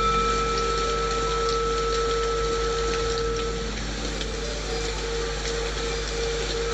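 A singing bowl rings on after a strike. Its upper tone fades about halfway through, while the low hum lingers with a slow wobble, over steady rain white noise.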